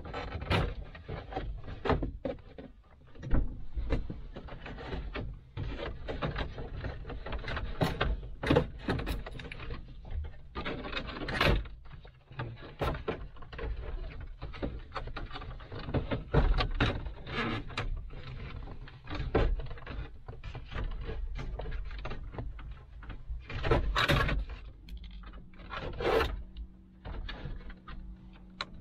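Hands working a board out of a car's dashboard: plastic and wood parts rubbing, scraping and knocking, with irregular clicks and clunks.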